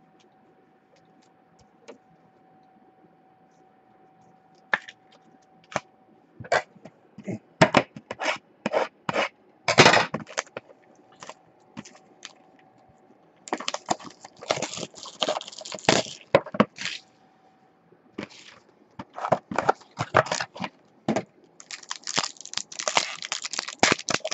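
Trading-card boxes being handled on a table, giving a run of taps and knocks, then plastic wrapping crinkling and tearing as a card pack is ripped open, densest near the end.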